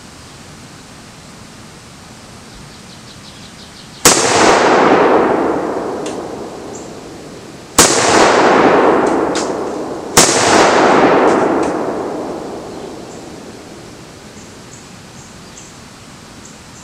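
Three black-powder blank shotgun shells fired from an AK-pattern semi-automatic shotgun, about four, eight and ten seconds in. Each sharp bang trails off in a long rolling echo over two to three seconds. The 150-grain loads throw the bolt carrier back so hard that the owner wants to turn the gas setting down.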